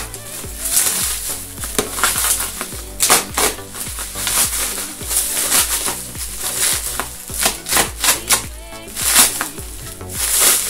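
Packing material being pulled open and unwrapped by hand: a run of irregular crinkles and crackles, over background music.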